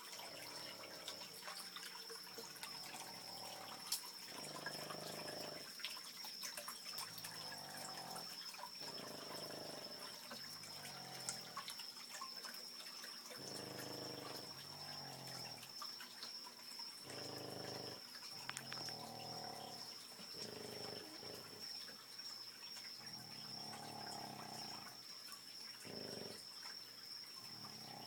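Three Boston terriers snoring together: loud, pitched snores about half a second to a second long that come irregularly and overlap, one every one to two seconds. A faint steady high-pitched whine runs underneath.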